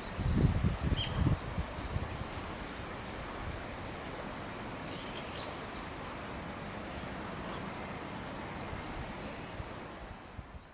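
Outdoor ambience: a steady hiss of background noise, with rustling and soft handling bumps in the first second and a half and a click about a second in. Faint, short bird chirps come a few times around the middle and near the end.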